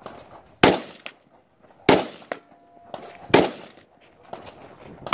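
Rifle shots fired one at a time by a shooter in the prone position, four shots at a steady pace about a second and a half apart, each with a short ringing tail.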